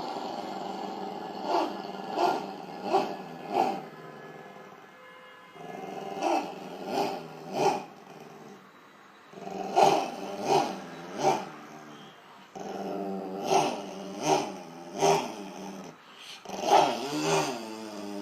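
Dog growling in long rumbling stretches, each pushed up three or four times in quick surges about two-thirds of a second apart, like a motorcycle being revved. Four such runs come one after another with short pauses between.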